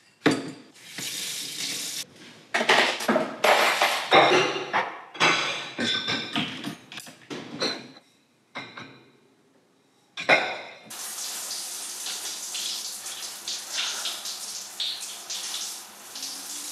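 Dishes and cutlery clattering and clinking as they are cleared away and set into a dishwasher rack. A kitchen tap runs in a steady rush for the last six seconds or so.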